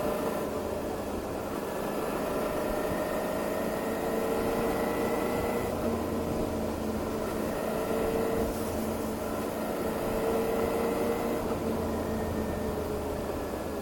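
Motorcycle engine running steadily while riding, its pitch drifting slowly up and down, over a steady rush of noise.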